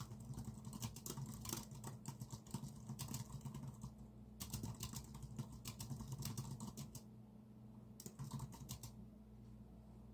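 Typing on a computer keyboard: runs of rapid keystrokes broken by short pauses, with the typing stopping about a second before the end.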